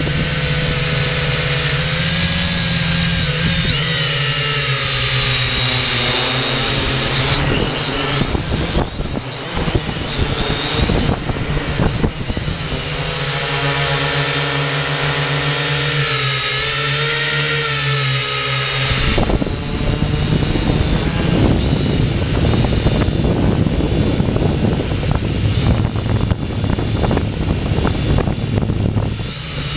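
Xtreem Fly Eye quadcopter's electric motors and propellers whining, heard from the camera on the drone itself. The pitch drifts up and down as the motors speed up and slow down, with rushing wind noise on the microphone for a few seconds in the middle and through the last third.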